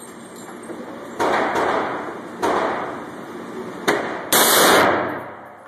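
Gunshots with echo: single reports about a second in and about two and a half seconds in, a sharp crack near four seconds, then the loudest, a short blast just after it, each trailing off over most of a second.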